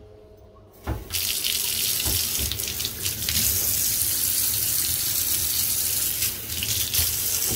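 Water tap turned on about a second in and then running hard and steadily, water splashing into a bath or sink.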